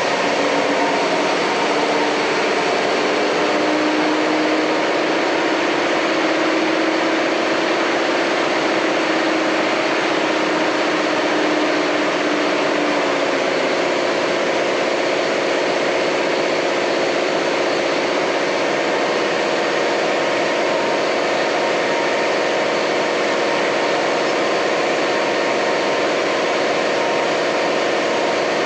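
Steady machine noise in a dyno bay: a constant rushing hum with a few faint tones that waver slightly in pitch, and no revving.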